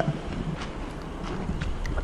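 A few soft, scattered taps or knocks over a faint steady background.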